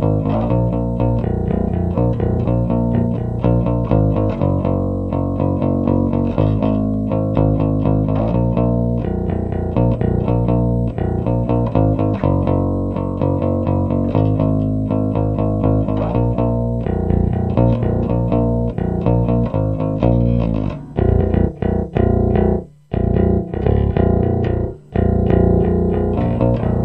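Five-string electric bass played fingerstyle over a loud hard-rock backing track, pumping steady eighth notes. From about 21 seconds in, the music turns into short stop-start hits with brief gaps.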